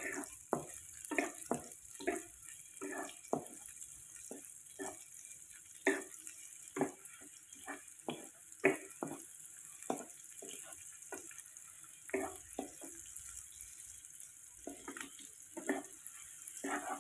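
Sliced shallots and garlic sizzling in hot oil in a non-stick wok while a spatula scrapes and clacks against the pan, about one or two knocks a second, with a short pause near the end. They are being sautéed until cooked and fragrant.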